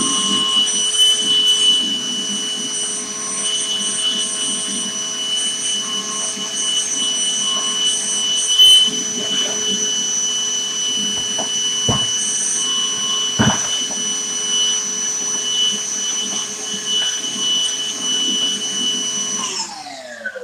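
Milwaukee wet/dry shop vacuum running steadily with a high whine while its hose is worked along a track-saw rail. There are two sharp knocks about two-thirds of the way in. Near the end the vacuum is switched off and winds down, its pitch falling.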